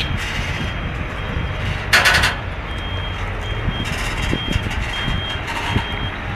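Reversing alarm of a bitrem double-trailer truck beeping about once every three-quarters of a second over the low running of its diesel engine. A brief loud hiss comes about two seconds in.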